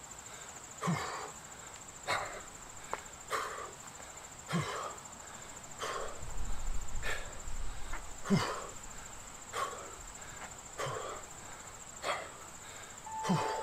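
Forceful breathing of a man doing lateral lunges with punches: a short, sharp exhale about every 1.2 seconds, each with a slight grunt. A steady high-pitched insect trill runs underneath, and a short beep sounds near the end.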